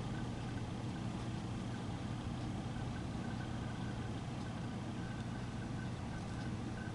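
A steady low hum with a faint, wavering higher whine above it, unchanging throughout.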